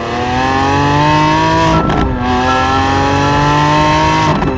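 Lamborghini Countach V12 engine accelerating hard, its pitch rising steadily through a gear. It breaks briefly for an upshift about two seconds in, then rises again, with another shift near the end.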